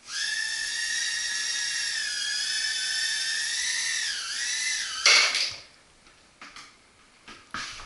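Floureon FX10 micro quadcopter's tiny coreless motors whining at a high pitch as it lifts off and flies, the pitch dipping briefly about four seconds in. About five seconds in comes a short loud clatter as it comes down on the table, and the motors stop.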